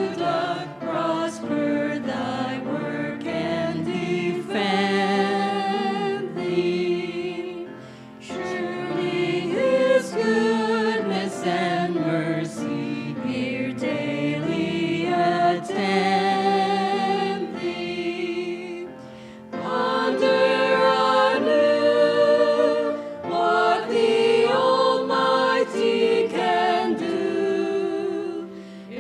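A choir singing a slow sacred piece in held notes with vibrato, with brief breaks between phrases about eight and nineteen seconds in.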